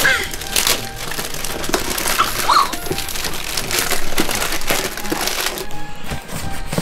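Gift-wrapping paper being ripped and crumpled by hand as presents are torn open, over background music.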